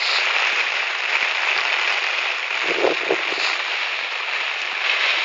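Heavy rain falling on a flooded street, a steady hiss with scattered faint drop ticks. A brief low sound about three seconds in.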